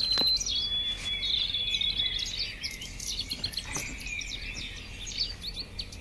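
Several wild birds chirping and singing together, with a few held, whistled notes in the first two seconds among rapid short chirps. A single light knock comes just after the start.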